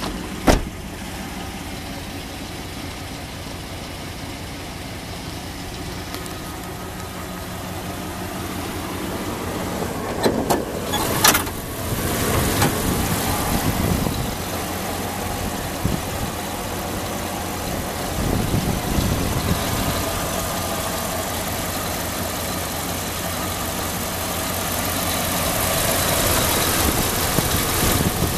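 1999 Dodge Ram 2500 pickup's engine idling steadily. A door shuts with a sharp bang just after the start, and a few sharp clunks come around ten seconds in.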